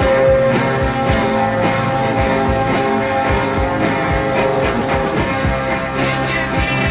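Background music: guitar-led rock with a steady beat of about two a second.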